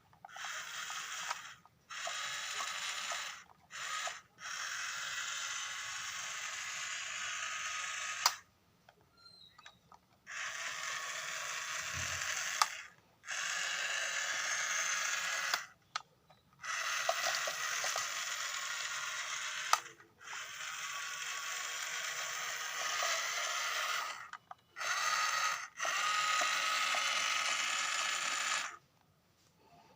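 Small electric gear motors of a battery-powered remote-control toy wheel excavator whirring in stretches of a few seconds, stopping and starting again and again as the controls are pressed, with a sharp click now and then.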